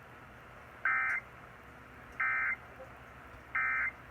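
Emergency Alert System end-of-message code: three short, buzzy digital data bursts about 1.4 seconds apart. They close the just-finished broadcast test message.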